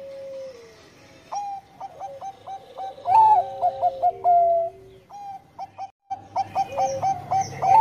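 Zebra dove (perkutut, Bangkok song strain) cooing: a run of short, quick staccato coos that swells into longer, louder held notes about three seconds in, pauses briefly around five to six seconds, then starts a new quick run. A softer, lower rolling coo sounds at the start and again beneath the loud notes.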